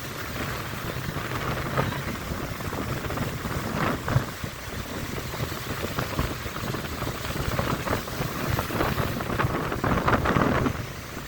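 Strong onshore wind buffeting the microphone over the low rumble of breaking surf, swelling in gusts and loudest near the end.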